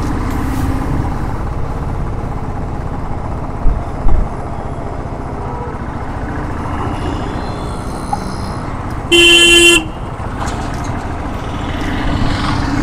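Riding noise on a Royal Enfield Thunderbird 350X single-cylinder motorcycle: a steady low rumble of engine and wind, with two brief low thumps about four seconds in. A vehicle horn blares once for under a second about nine seconds in, the loudest sound.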